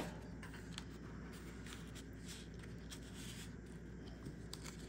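Faint rustling and sliding of paper and card as a small card is handled and tucked into a paper pocket of a handmade journal, with a sharp tap right at the start.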